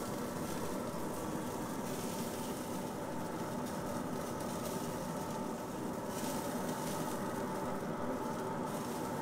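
A steady mechanical hum: a noisy rumble with several held tones under it, unchanging throughout.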